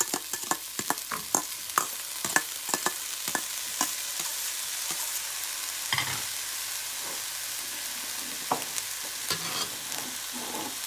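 Ground meat and onions frying in a pan with a steady sizzle as chopped bell peppers are tipped in. Many quick clicks and knocks come over the first few seconds, and a few scattered ones later.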